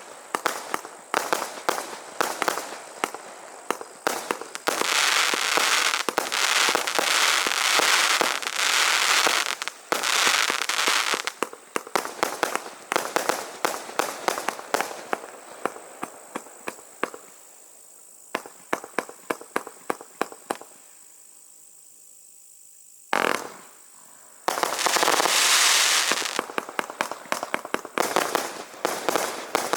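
Bulldog Fireworks 'Devil's Fire' firework going off in a run of sharp cracks and dense crackling volleys. The cracks thin out to a lull about two-thirds of the way through, broken by one loud bang, before another crackling volley.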